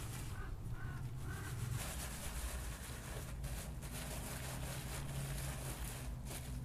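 Hands stirring and sifting small red berries in a coiled grass basket, a soft rustling over a steady low hum.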